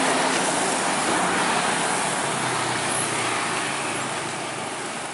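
A large coach bus driving away, its engine and tyre noise a steady rush that fades gradually as it recedes.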